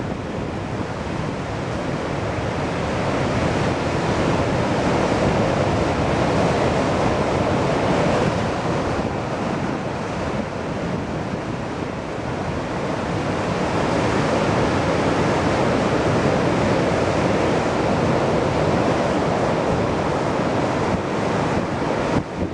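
Ocean surf breaking over a rocky shore, a continuous wash of breaking water that swells louder a few seconds in, eases in the middle and swells again later. Wind buffets the microphone underneath.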